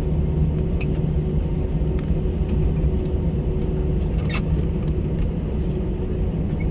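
Steady low cabin rumble and hum of an Airbus A320 rolling on the ground after landing, with a few faint clicks, the loudest about four seconds in.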